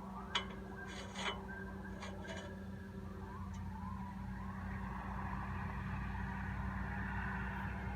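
Metal blade guide on a homemade band sawmill being slid and worked on its mount: a few short scraping clicks in the first two and a half seconds, over a steady low hum.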